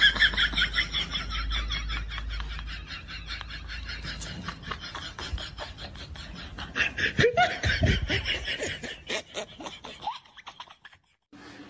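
A woman laughing hard in rapid, high-pitched bursts, trailing off to quiet near the end.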